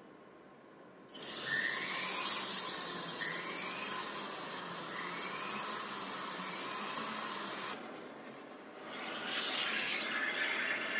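Small high-speed rotary handpiece drilling into a thin silver flower piece: a high whine that starts about a second in, with a short rising squeal about every second and a half as the bit bites, and cuts off suddenly near eight seconds. Near the end a jeweler's soldering torch flame hisses steadily.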